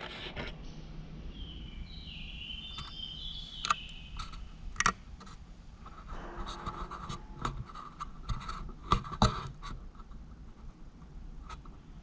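Scattered scrapes, knocks and shoe scuffs on concrete and debris as a person in canvas sneakers clambers through a gap in a concrete wall and moves about a bare concrete chamber.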